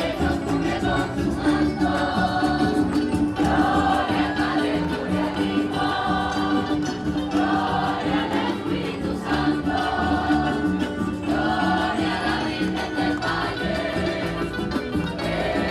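A choir singing a hymn with instrumental accompaniment. Sung phrases rise and fall over a steady held low note and a regular beat.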